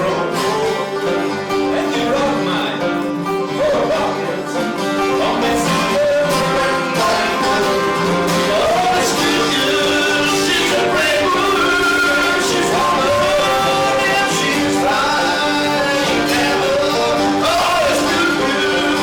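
Bluegrass-style folk music played on banjo and guitar, with a wavering melody line coming in above the picking about nine seconds in.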